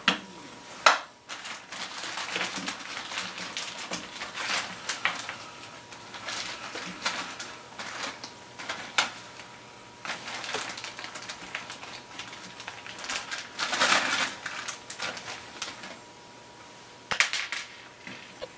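Hands handling a small wooden platform with a metal plate and magnets: a run of irregular light clicks, taps and rattles, with a sharp click about a second in and a louder burst of clatter about two-thirds of the way through.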